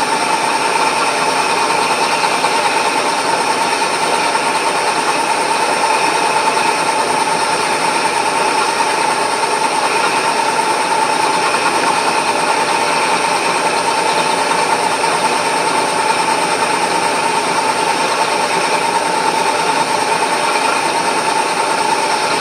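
Vertical milling machine spindle running steadily after spinning up, with a constant whine over a steady mechanical hum.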